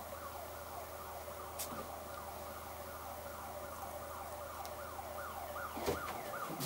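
Faint emergency-vehicle siren sounding in fast rising-and-falling sweeps, about three a second, over a steady low hum. There is a short knock near the end.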